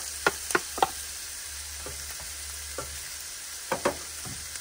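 Ground sausage and diced onions sizzling in a frying pan, with sharp knocks and scrapes of utensils against the pan: a quick run of knocks in the first second, then a few scattered ones as a wooden spatula stirs.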